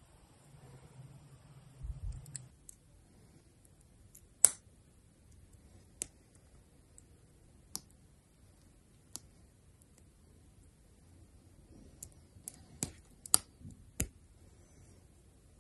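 Plastic model kit parts of an MGSD Freedom Gundam leg being pressed and snapped together by hand. There are single sharp clicks a second or two apart, then a quick run of clicks near the end.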